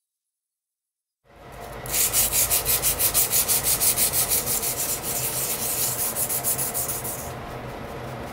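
Hand-sanding an engraved brass plate with a sanding sponge: fast back-and-forth scratchy rubbing strokes, about five or six a second, starting about two seconds in. Near the end the strokes give way to a softer, duller brushing.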